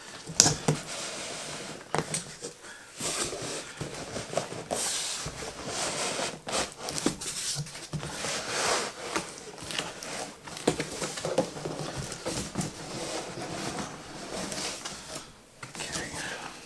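A large cardboard box and its packaging being handled and opened: irregular rustling and scraping with frequent knocks and clicks.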